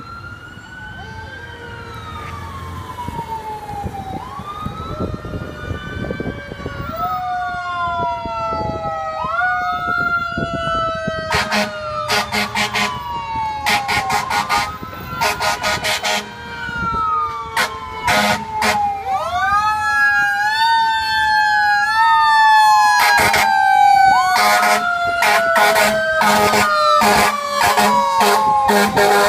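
A fire engine's Federal Q2B mechanical siren winding up again and again, each time rising quickly in pitch and then coasting slowly down, growing steadily louder. From about eleven seconds in, clusters of short air horn blasts join the siren and are the loudest sounds.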